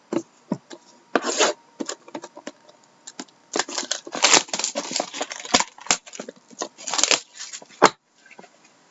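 Plastic wrap and cardboard of a sealed trading card box being handled and opened: crinkling, tearing and rubbing in quick irregular bursts with small clicks, busiest in the second half.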